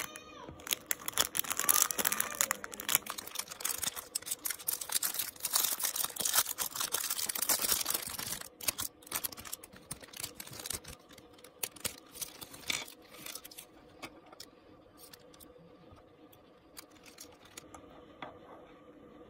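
Thin clear plastic packaging bags crinkling and crackling as they are handled and opened, dense for about the first eight seconds, then sparser crackles and small ticks that die away over the last few seconds.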